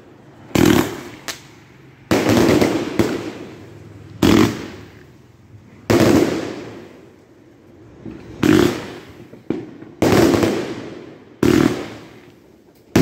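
A 100-shot Fire Of Revenge firework cake firing its shells: about eight sharp bangs at uneven gaps of one to two seconds, each trailing off over about a second as the stars burst.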